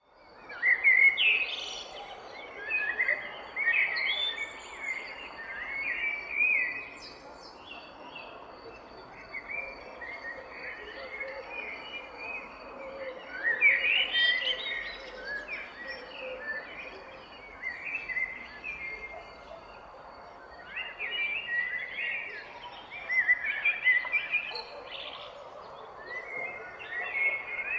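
Several songbirds chirping and singing in short, quick phrases over a soft, steady rustling background, with a thin steady high tone running underneath.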